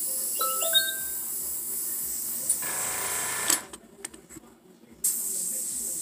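Airbrush spraying with a steady high hiss of air, which stops for about a second and a half past the middle and then starts again. A small motor hums low underneath throughout.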